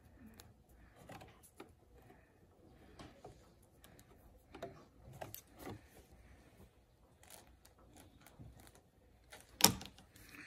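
Faint scattered clicks and handling noises, with one sharp click about nine and a half seconds in.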